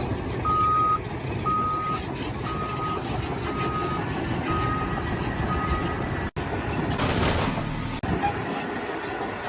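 A vehicle's reversing alarm beeping about once a second, six times, over a constant engine rumble, then stopping. Near the end comes a brief hiss.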